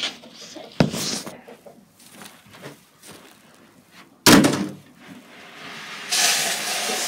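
A light knock about a second in, then a loud slam a little after four seconds, like a door or lid banging shut inside a small wooden coop, and a rushing, rustling noise near the end.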